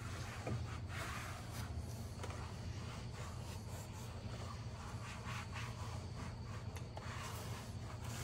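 Faint, irregular rubbing strokes of an applicator pad being wiped across a black plastic rear bumper as ceramic coating is worked in. A steady low hum runs under it.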